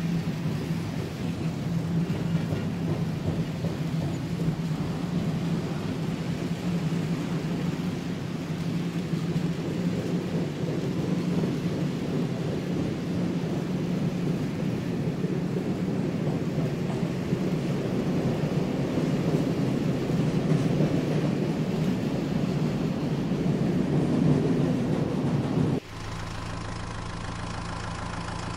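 Märklin H0 model trains running on the pressed-steel M-track: a loud, steady rumble of metal wheels on the track mixed with the whir of the locomotive motors. About 26 s in it cuts off suddenly and a quieter, steadier hum takes over.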